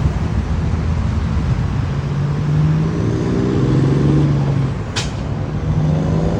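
Scania truck engines with aftermarket exhausts pulling away hard, a deep bellowing note whose pitch climbs and steps up from about two seconds in. There is a brief sharp burst of noise about five seconds in.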